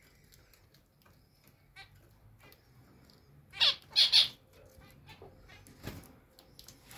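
Zebra finches calling: three loud calls in quick succession a little past halfway, with softer chirps and a few small clicks around them.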